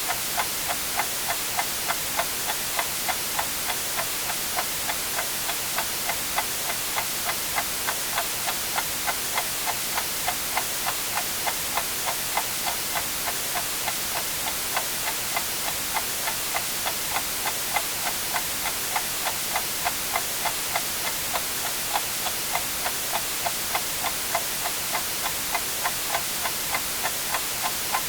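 A clock ticking evenly, about two ticks a second, over a steady white-noise hiss.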